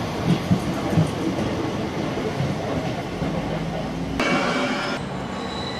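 Southeastern electric train running past a station platform, wheels rumbling on the rails with a few knocks in the first second. About four seconds in the sound changes abruptly and a high ringing whine joins the rumble.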